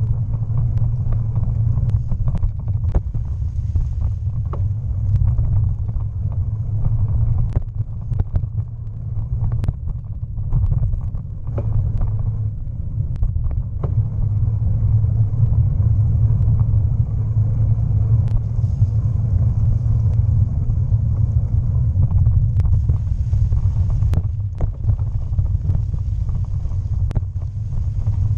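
Bicycle ridden fast along a tunnel towpath, heard from a camera mounted on the bike: a steady low rumble of tyres and moving air on the microphone, with scattered clicks and knocks as the bike rattles over the uneven path.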